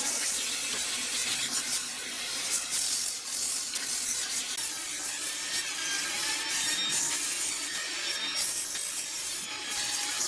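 Wood being worked by hand with a tool, a continuous rubbing scrape with small uneven strokes.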